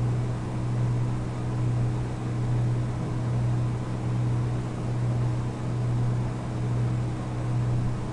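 Steady low hum over a constant background hiss, swelling and fading slightly about once a second.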